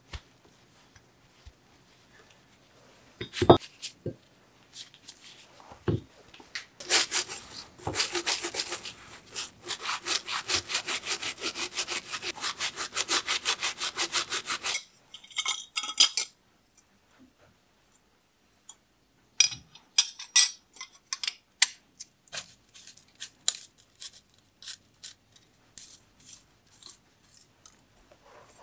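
A stiff brush scrubbing a grimy small chainring in fast, even back-and-forth strokes for about eight seconds, with a couple of knocks before it and scattered light clicks and taps of parts and tools afterwards.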